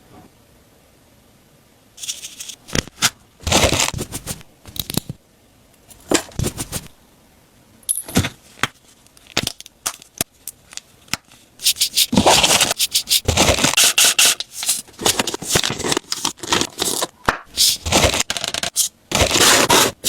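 Close-miked rustling and crinkling of tissue paper and gift packaging being handled, with scrapes and sharp clicks. It begins about two seconds in after a brief hush, comes in separate handfuls at first, and becomes nearly continuous from about twelve seconds on.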